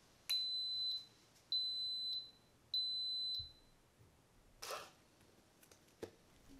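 Instant Pot electric pressure cooker giving three long, even beeps as its pressure-cook program starts, followed by a short brief rustle.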